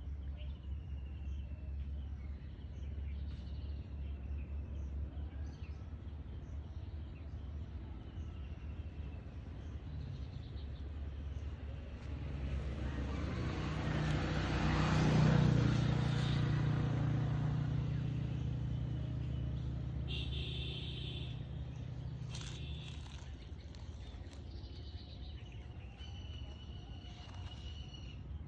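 A motor engine passes by, growing louder to a peak about halfway through and fading away over several seconds, over a steady low hum and birds chirping now and then.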